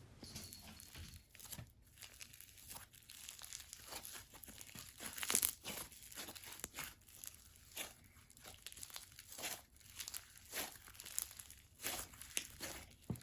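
Slime being squished and stretched by hand, giving faint, irregular crackling clicks and little pops, the loudest cluster about five seconds in. The slime is called super sizzly.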